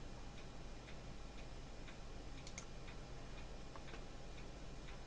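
Faint, irregular light ticks and clicks over a steady low electrical hum.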